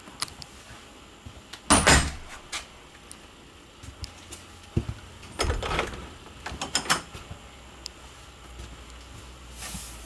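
Interior doors of a travel trailer being handled, opened and shut as someone moves through: a series of knocks and rattles, loudest about two seconds in, with another cluster between about five and seven seconds in.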